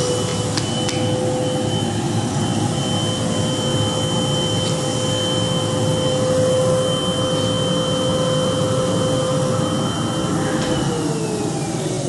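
Henry vacuum cleaner's motor running with a steady whine, then switched off about ten and a half seconds in, its pitch falling as the motor spins down.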